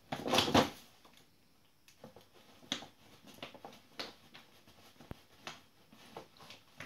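Large crinkly dog food sack rustling as a small dog rummages inside it for crumbs. A loud burst of crackling comes in the first second, then scattered short crinkles and crunches.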